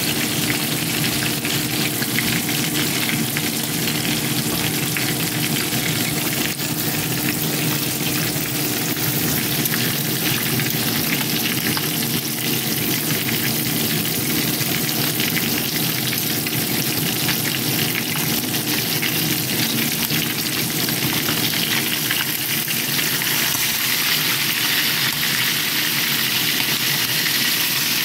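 Whole round scad (galunggong) frying in hot oil in a pan: a steady, dense sizzle and crackle of spitting oil.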